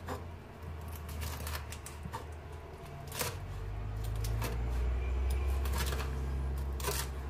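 Kitchen knife chopping fried chicken on a wooden cutting board: irregular knocks of the blade on the board. A low steady hum comes in about three seconds in and grows louder.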